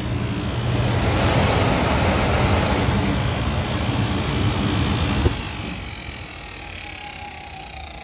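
Goodman gas furnace running: a loud steady rush from the firing burners and inducer drops away after a click about five seconds in, leaving the inducer motor's quieter steady hum with a faint whine. The inducer is noisy, which the technician suspects is bearing wear inside the motor.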